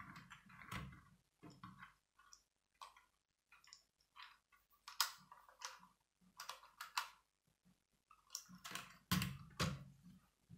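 Plastic Lego bricks being handled and pressed together, with irregular small clicks and rattles as a Lego City helicopter's rotor assembly is snapped into place. A few louder knocks come near the end.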